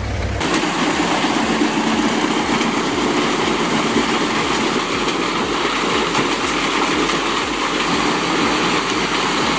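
A truck-mounted Biber wood chipper running under load, with a dense, steady grinding noise over the engine and a low regular pulse a little under twice a second.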